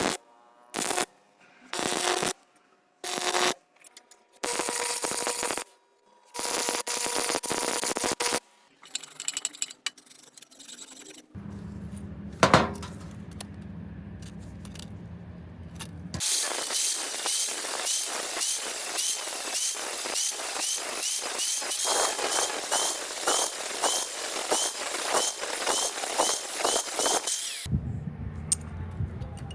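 Metalworking tool sounds in short cut-together bursts, then a low steady hum with a single sharp click, then a long stretch of dense crackling and scraping with regular strikes.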